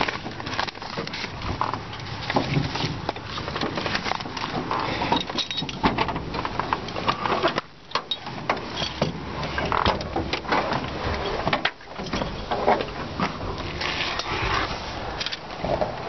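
Camera handling noise: irregular rustling, scraping and knocks as the handheld camera is moved and rubbed about the cockpit, with two brief quiet spells about 8 and 12 seconds in.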